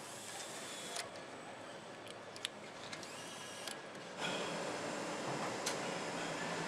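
Car assembly plant floor noise: a steady mechanical hum with a few sharp clicks and knocks, growing louder a little past halfway.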